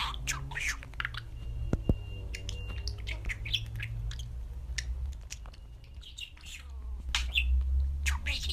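Budgerigar chirping and squawking in short, scattered calls, over a low steady hum.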